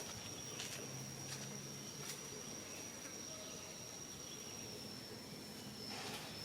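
Insect chorus, a steady high-pitched trill that does not break, with a few faint clicks.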